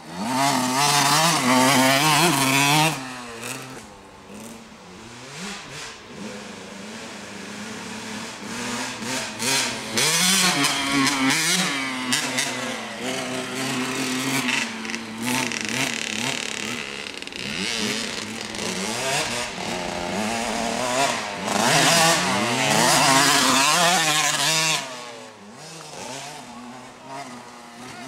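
Small 65cc two-stroke dirt bike (KTM 65) being ridden around a dirt track, its engine note rising and falling again and again with the throttle. It is loudest three times, at the start, about ten seconds in and about twenty-two seconds in, as the bike passes close.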